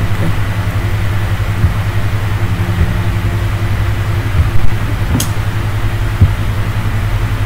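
A steady low machine hum with a fast pulsing rumble, and a few faint short clicks.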